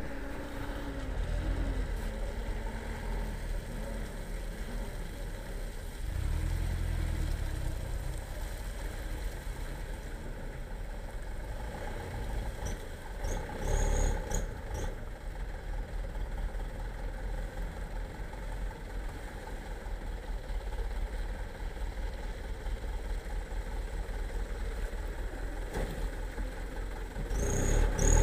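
Truck diesel engine running slowly as a loaded Mitsubishi light truck works through deep mud: a steady low rumble that grows louder near the end as the truck comes closer.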